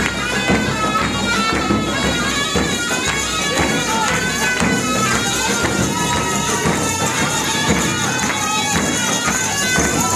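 Loud folk dance music: a wind instrument carries a stepping melody over a steady drum beat, with crowd noise underneath.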